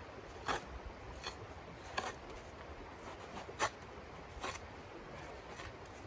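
A small shovel crunching and scraping into snow: short scrapes, one every second or so, the loudest a little past halfway.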